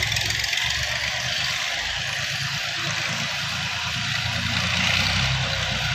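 Massey Ferguson 240 tractor's three-cylinder diesel engine running steadily under load as it pulls a disc plough through the soil, with a steady hiss above the engine note.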